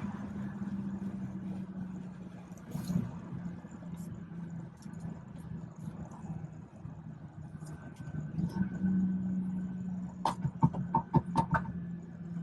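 BMW 440i's tuned B58 turbocharged inline-six engine droning steadily while driving, with a quick run of sharp clicks about ten seconds in.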